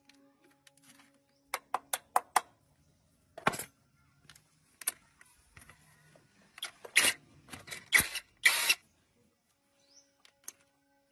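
Scattered metallic clicks and knocks, then a cluster of short scraping noises, from hand work on engine parts, over a faint steady hum.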